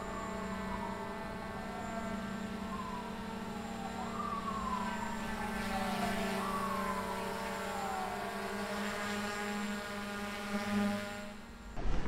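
DJI Mavic Air 2 quadcopter hovering close by, its propellers giving a steady whine made of several tones, with a tone that repeatedly slides down in pitch. Near the end the whine stops suddenly as the motors shut off.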